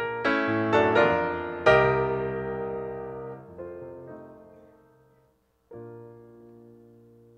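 Solo grand piano played in chords: a series of struck chords rises to the loudest one about two seconds in, which is left to ring and die away. After a short silence a single soft chord sounds and fades out.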